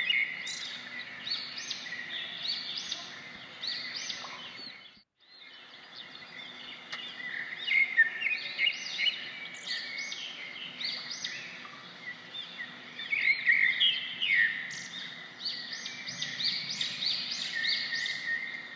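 Many small birds chirping and twittering together in a steady chorus of short calls, breaking off briefly about five seconds in.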